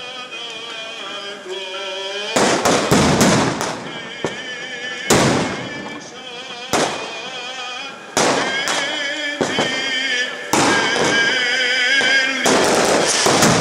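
Firecrackers and fireworks going off in loud, irregular bangs, about a dozen of them, over the voices of a crowd.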